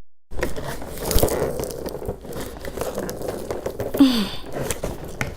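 Packing tape and a cardboard box being torn and pulled at by hand, a continuous crinkling, scraping rustle with small clicks. A short falling tone about four seconds in.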